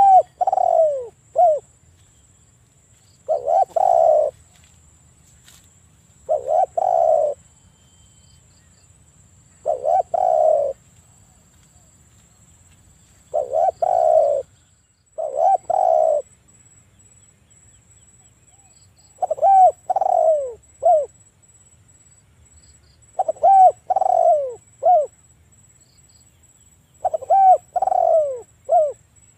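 Spotted dove cooing: a short phrase of a few low coos, some gliding down in pitch, repeated about every three to four seconds, nine times in all.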